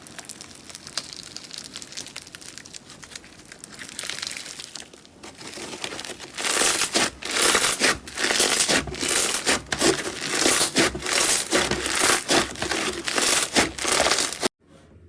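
Slime being squeezed and worked by hand, giving a fine crinkling crackle. About six seconds in it gets much louder, with repeated crackling squeezes a few times a second, and it cuts off suddenly near the end.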